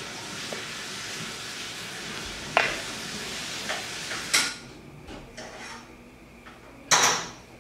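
Kitchen sounds: a steady frying sizzle with a few sharp clinks of utensils or pans. After about four seconds this drops away to quieter room sound, and a short loud burst of noise comes near the end.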